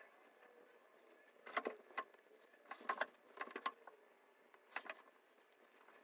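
Paintbrush dabbing on canvas and palette: a string of short taps and scuffs, in small groups about one and a half, three and five seconds in.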